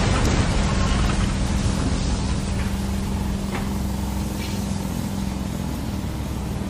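Heavy construction machinery engine running with a steady low rumble and a held hum that fades out near the end.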